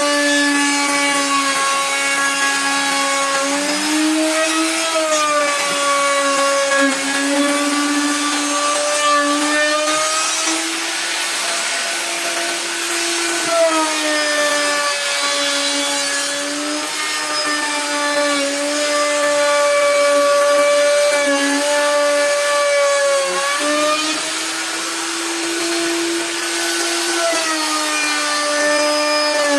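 Electric power tool cutting wood, its motor whining steadily with a pitch that sags and recovers as the cut loads it.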